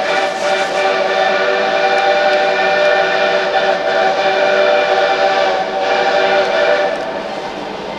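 Steam locomotive whistle blowing one long held blast of several steady notes sounding together, which ends about seven seconds in.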